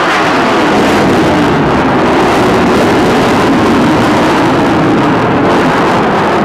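F/A-18 Hornet fighter's twin General Electric F404 turbofan engines: loud, steady jet noise as the aircraft flies a display pass.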